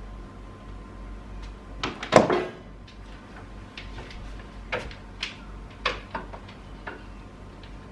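Household items knocking and clattering as they are handled and set down around a TV cabinet. A louder clatter comes about two seconds in, followed by a string of smaller sharp knocks.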